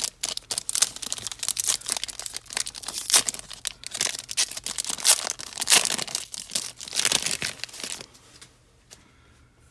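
Plastic trading-card pack wrapper being torn open and crinkled, a dense crackling that stops about eight seconds in.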